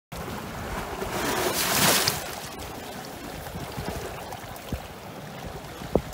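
Lake waves splashing and washing into a gap between shoreline rocks, one wave breaking louder about two seconds in, with wind rumbling on the microphone.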